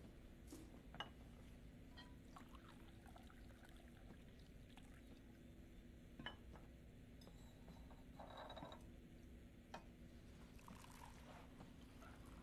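Faint handling of laboratory glassware: a few small, sharp glass clinks and a brief pour of liquid about eight seconds in, over a low steady room hum.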